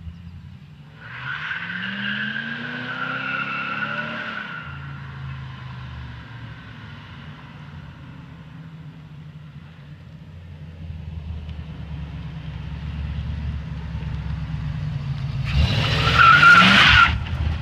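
Oldsmobile 350 Rocket V8 with a rebuilt Quadrajet carburettor revving up as the car accelerates hard, with the tires squealing. It settles to a steadier run, then revs again near the end with a second, louder tire squeal.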